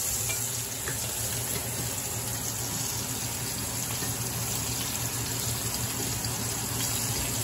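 Salmon fillets sizzling steadily in hot oil in a stainless-steel sauté pan, with a steady low hum underneath.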